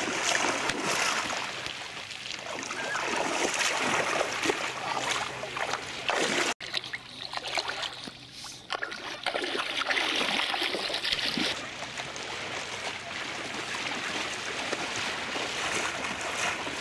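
Water splashing and sloshing as a Yorkshire terrier paddles while swimming. The sound cuts out briefly about six and a half seconds in.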